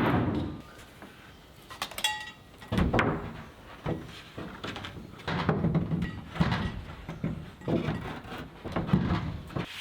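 Irregular knocks and thumps of a plywood sheet being handled and fitted against framing, with a brief squeak about two seconds in.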